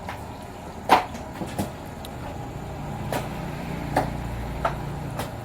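A glass of iced young coconut being handled and drunk from: a few sharp clinks and knocks, the loudest about a second in. A low steady hum runs underneath.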